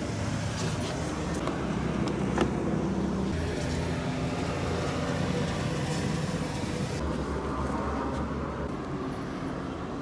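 Steady road traffic noise with a motor vehicle engine running nearby, its low hum shifting a little a few times; a single sharp click about two and a half seconds in.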